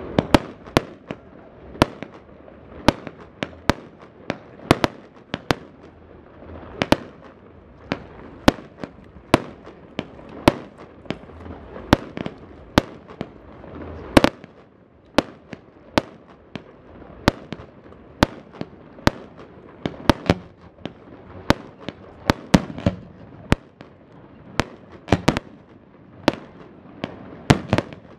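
Fireworks display: aerial shells going off in a steady, irregular run of sharp bangs, about two a second.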